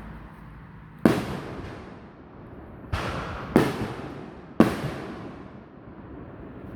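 Bang snaps (snap pops) thrown onto the ground, going off as four sharp cracks about a second in, near three seconds, and twice more within the next second and a half, each fading away briefly after the crack.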